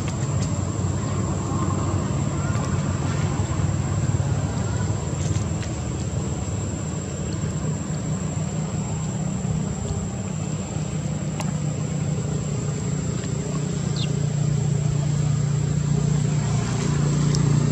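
Steady low motor drone, like an engine running, growing a little louder near the end, with a few faint ticks.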